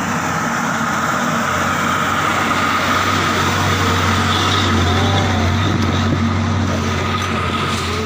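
A heavy goods truck drives past at close range, its engine running steadily. It gets louder toward the middle as it comes alongside, then fades as it goes by.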